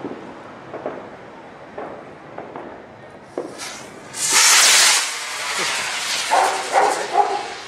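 Firework spraying sparks: a loud hissing rush that starts about four seconds in and lasts about a second, then tails off.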